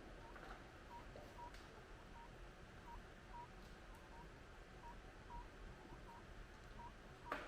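Firewood burning quietly in a fire pit, with faint crackles and one sharp pop near the end. Behind it, a faint series of short chirps repeats irregularly about twice a second.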